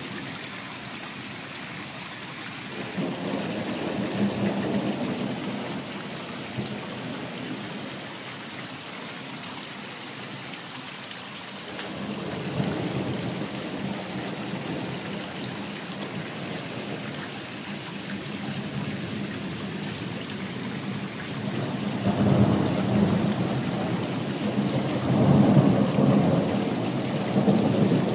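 Thunderstorm: steady rain falling throughout, with rolling thunder rumbling in three long swells, the last and loudest near the end.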